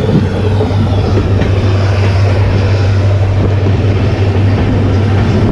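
Jan Shatabdi Express passenger train running at speed, heard from its open door: a steady low drone with a rushing noise over it, likely wind over the microphone.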